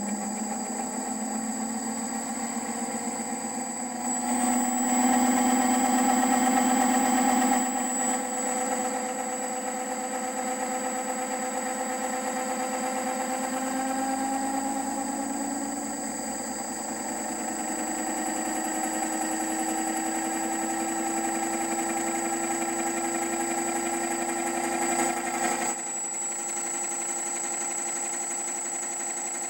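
A 3D-printed permanent-magnet generator's rotor and its drive running on a test rig, a steady mechanical hum and whine that slowly climbs in pitch as the rotor gathers speed. It is louder for a few seconds about four seconds in.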